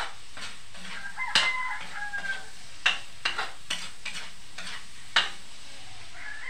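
Metal ladle clanking and scraping against a wok over and over as pancit is stir-fried, with food sizzling under it. A rooster crows once in the background, starting about a second in.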